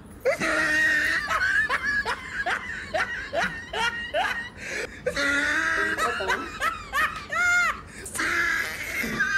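Hearty human laughter in quick repeated pulses, about three a second, breaking into a high-pitched squeal of laughter about seven seconds in, then more laughing.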